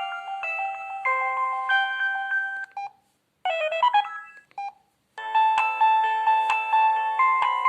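Preloaded ringtones of a Samsung SGH-C450 mobile phone playing: a melody of several notes at once ends about three seconds in, a short jingle follows, and after a brief silence another ringtone melody begins.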